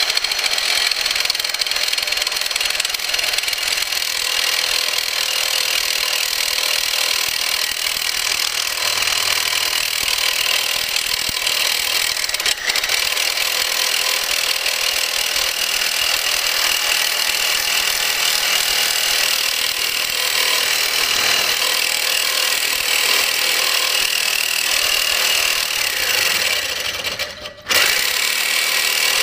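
Reciprocating saw with a carbide-tipped metal-cutting blade sawing through a hardened steel file: a steady, loud, harsh cutting noise that stops briefly near the end and starts again. The blade's carbide teeth are chipping off against the very hard steel as it cuts.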